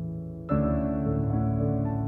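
Gentle new-age instrumental background music of sustained chords, with a new chord striking about half a second in.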